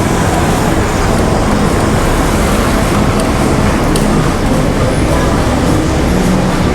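Steady, loud rumble of riding on an electric skateboard along city streets: wind on the microphone mixed with wheel and road noise, with a few faint ticks.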